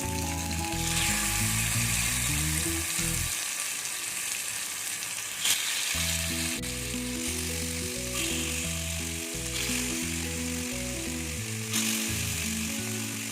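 Marinated chicken sizzling in hot oil in an appam pan, a steady frying hiss. Background music plays over it, dropping out for a few seconds in the middle, and there are two short knocks, about 5 s and 12 s in.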